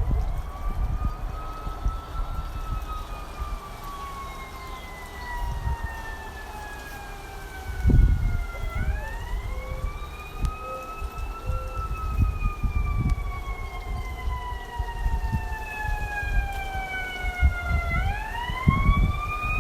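A siren wailing in slow cycles: the pitch rises quickly, then falls slowly over several seconds, starting again about nine seconds in and again near the end. Irregular low rumble and thumps run underneath, the loudest about eight seconds in.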